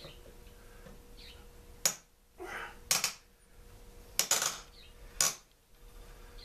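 Hand tools working on a rusted gas-tank bolt of a Mantis tiller: about five sharp metal clicks and knocks spread over a few seconds, some followed by a short scrape.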